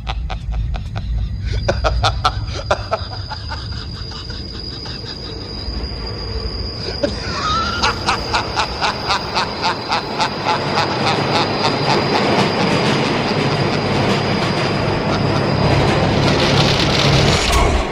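Subway train running through the station: a steady high wheel squeal over the rumble, with the rhythmic clickety-clack of wheels over rail joints, about two clacks a second, getting louder from about halfway through as the train passes.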